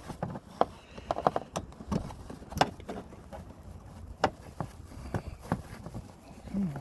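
Irregular light clicks and taps of the handle bolt and new door handle being fished into place inside a Ford F-150 door, a dozen or so small knocks with the sharpest about two and a half seconds in.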